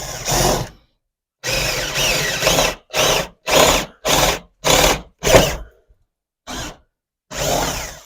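Power drill boring a hole for wiring, run in start-stop trigger bursts: two runs of about a second each, then about seven short bursts with pauses between them, the motor pitch rising and falling as it spins up and down.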